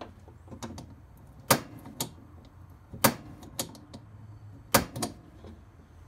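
Push-button sparker on a propane refrigerator's burner clicking as it is pressed to light the pilot: three pairs of sharp clicks about a second and a half apart, each a loud snap followed by a softer click.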